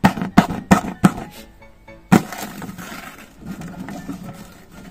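Tweezer tips tap and poke a glossy paper sheet four times. About two seconds in, the paper is punched through and torn open by hand, with a sharp rip followed by sustained crinkling.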